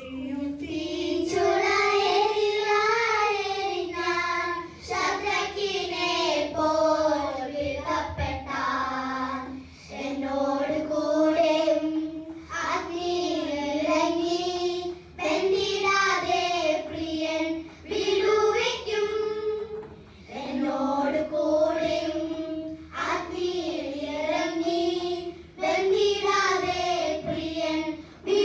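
A group of children singing a song together into microphones, one melody line in phrases of a few seconds with short pauses for breath between them.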